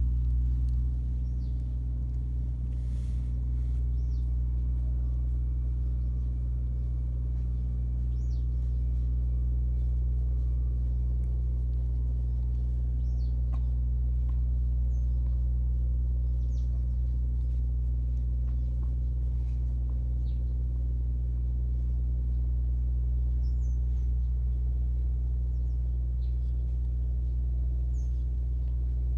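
Domestic cat purring deeply and steadily while it is stroked, the purr swelling and easing with each breath; a sign that it is content. Birds chirp briefly now and then.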